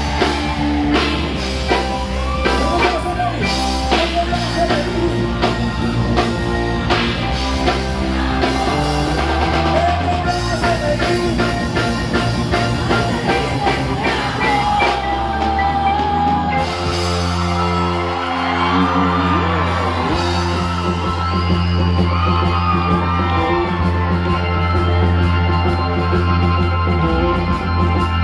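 Live rock band playing loudly: drum kit, electric bass and a singing voice over a steady beat.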